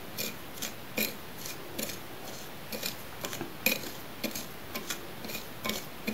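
Small plastic spoon stirring dry powder in a ceramic plate: a string of light, irregular clicks and scrapes as the spoon knocks and drags against the plate, about one or two a second.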